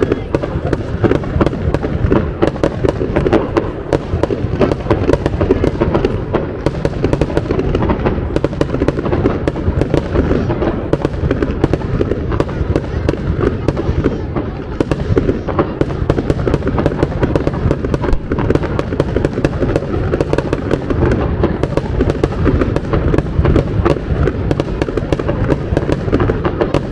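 Fireworks display in a dense, continuous barrage: rapid crackling and popping over a heavy rumble of shell bursts.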